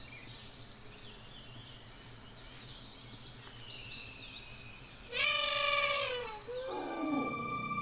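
Forest ambience with a steady high insect drone and a few bird chirps. About five seconds in, a loud animal call falls in pitch over about a second and a half, and a second, lower call falls after it.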